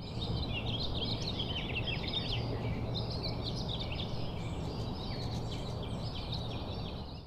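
Many small birds chirping over a steady low background rumble, fading in at the start and out at the end.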